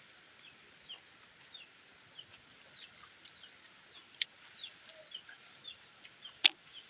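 Chickens calling in the background with short, high, falling peeps repeated over and over. A few sharp clicks are heard, the loudest near the end.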